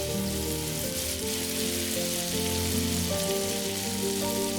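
Chicken and tomato masala sizzling in hot oil and ghee in a pan, a steady hiss. Background music with held, changing notes plays under it.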